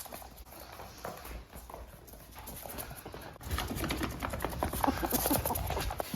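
Ferrets at play: rapid clucking chatter (dooking) mixed with quick scuffling and thuds, louder and busier from about halfway through.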